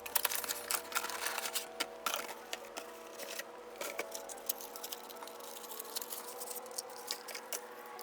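A CPU retail box and its plastic packaging being opened and handled by hand: a scattered run of light clicks, taps and rustles.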